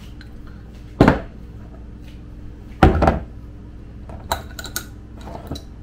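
A spoon knocks twice on a bowl, each knock ringing briefly, while spice powder is spooned out. A few light sharp clicks follow near the end.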